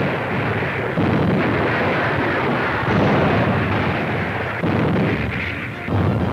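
Artillery fire and shell explosions: about five heavy booms a second or two apart, each trailing off in a rumble.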